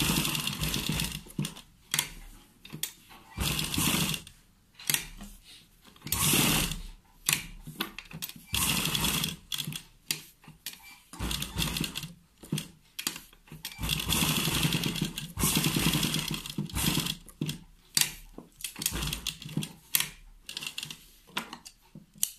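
Sewing machine stitching through fabric and buckram in short runs of a second or two, stopping and starting as the cloth is guided under the needle. Near the end there is one scissor snip.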